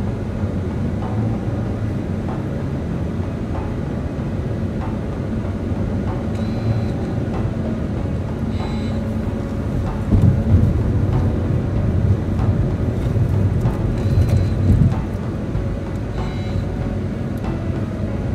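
Steady road and tyre noise with engine hum inside a car's cabin cruising at freeway speed. It grows louder for several seconds about midway through.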